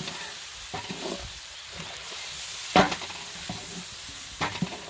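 Sliced onions sizzling in hot oil in a large metal pot, stirred with a wooden spoon that scrapes and knocks against the pot. The loudest knock comes about three seconds in.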